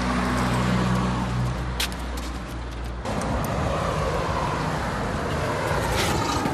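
Street traffic noise with a vehicle's engine hum for about the first two seconds, changing abruptly about three seconds in to a steady rushing outdoor noise.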